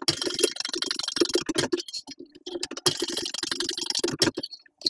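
TechSew 2750 Pro walking-foot industrial sewing machine top-stitching a folded leather tab: a rapid clatter of needle strokes in two runs, with a pause of about a second between them, and a sharp click at the very end.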